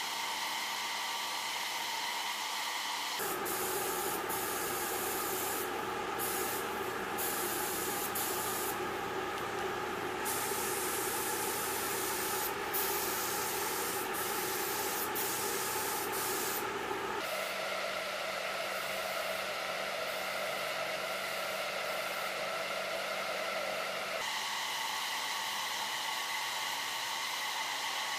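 Compressed-air paint spray guns hissing steadily over a constant hum with several steady tones, the sound changing abruptly a few times.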